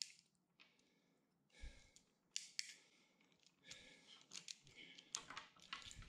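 A few faint, scattered clicks from a ratcheting MC4 solar crimping tool as it closes on a connector pin, with more of them in the last couple of seconds.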